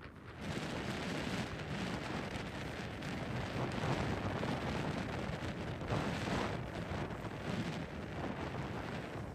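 Wind buffeting the microphone: a steady rushing rumble that swells and eases in gusts, with no clear engine note.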